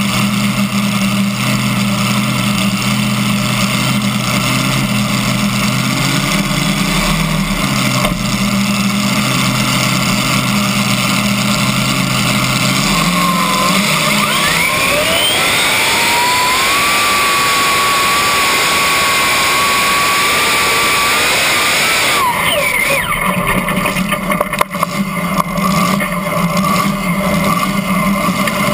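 Supercharged V8 engine of a competition pulling tractor running at low revs. A little under halfway in it climbs in pitch to full revs for the pull and holds there steadily for about six seconds. About three-quarters of the way in it drops off abruptly to low revs.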